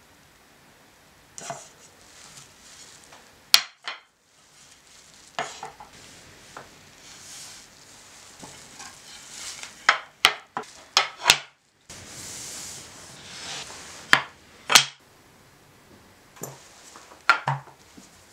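Wooden slats and panels of a folding table being handled and fitted together: scattered sharp clacks of wood on wood, four in quick succession around the middle, between stretches of sliding and rubbing.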